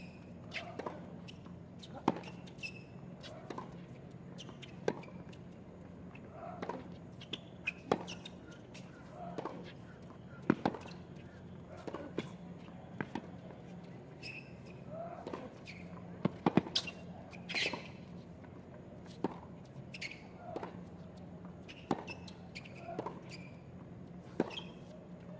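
Tennis ball bouncing on a hard court and struck by rackets: a string of sharp pops at irregular intervals, a second or more apart at times and in quicker runs at others, over faint crowd murmur and a few brief voices.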